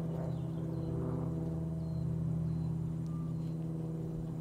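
Light aircraft's piston engine and propeller droning steadily at a constant pitch, a low hum with several overtones.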